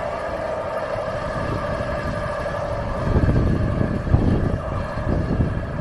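Heavy lorry's diesel engine running steadily with a constant drone. About halfway through, wind starts buffeting the microphone in gusts.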